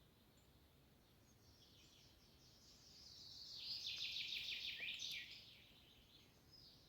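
Small songbirds singing faintly: a fast run of quick, repeated high notes that swells about halfway through, then fades away, with another song starting up near the end.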